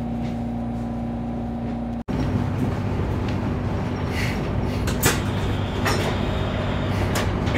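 Interior of a Frecciarossa high-speed train carriage: a steady cabin hum with a constant tone, then, after a sudden break about two seconds in, the louder rumble of the train rolling out over the tracks with several sharp clicks and knocks.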